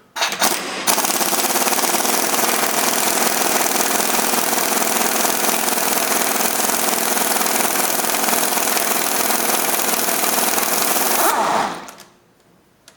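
Impact wrench hammering on the 32 mm front center hub nut, loosening it: a short burst, then about ten seconds of continuous rapid hammering that stops sharply about a second and a half before the end.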